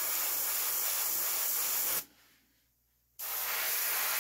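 Airbrush spraying paint onto a fishing lure, a steady hiss of air. It cuts off sharply about two seconds in and starts again a second later.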